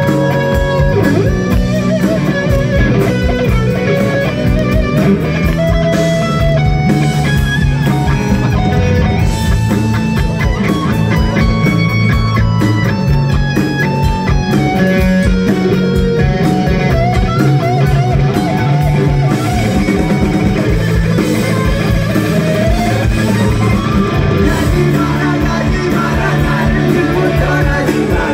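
A rock band playing live without vocals: an electric guitar melody over bass and a steady drum beat, through a PA.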